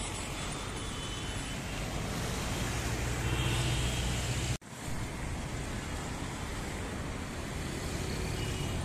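Steady city road traffic: cars and other vehicles running past, with one engine's low hum growing louder a little before halfway. The sound cuts out for an instant about halfway through, then the traffic noise carries on.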